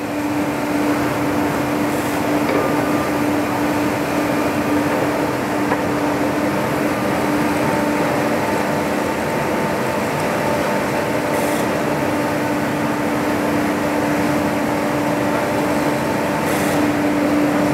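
UNION BFKP 130 CNC horizontal boring mill running under power as its axes are traversed: a steady hum with a constant tone, a little louder near the end.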